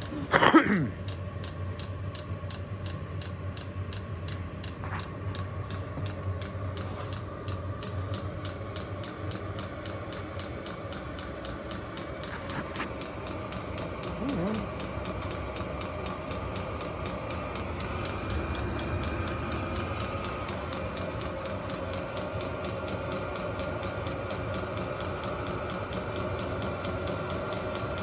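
VEVOR 8 kW diesel air heater running with its shell off and its burner freshly lit: the blower hums steadily while the fuel pump ticks at an even rhythm. A loud sudden knock about half a second in.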